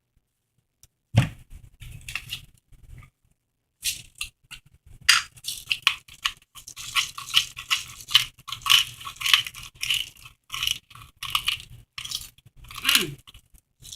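Close-up crunching and chewing of tortilla chips loaded with nacho toppings: irregular, sharp crunches that start about a second in, pause briefly around three seconds in, then go on thickly. There is a short sound falling in pitch near the end.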